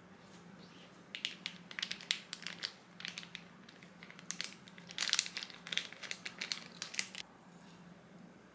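Plastic sauce pouch crinkling and crackling in irregular bursts as it is handled and squeezed out.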